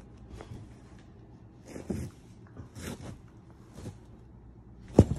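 A Miniature Pinscher shifting about on a quilted bed cover: a few short, soft rustles about a second apart, then a sharp thump about five seconds in.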